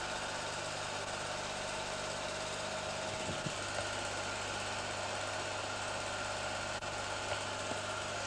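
Steady low hum with hiss, the unchanging background noise of an old home-movie transfer, broken only by a couple of faint ticks and a brief dropout about seven seconds in.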